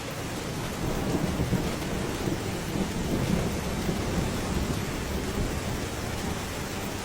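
Heavy thunderstorm downpour pelting down: a dense, steady rushing noise with a low rumble, swelling slightly about a second in.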